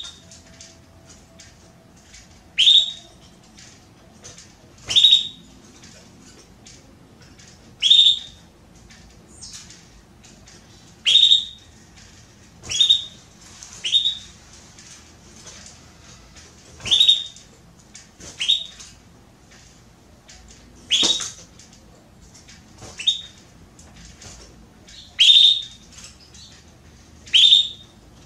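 Female domestic canary (canário belga) giving short, sharp, high calls, one every two to three seconds. This is the repeated call of a hen in breeding condition soliciting a male to mate.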